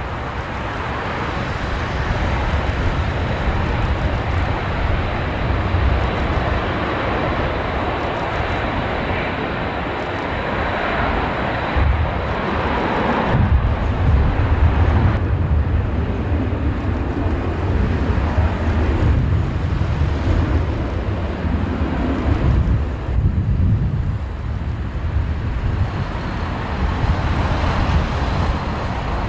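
Jet engine noise from a four-engined Airbus A380: a loud, continuous deep rumble that swells and ebbs, heaviest from about twelve to sixteen seconds in.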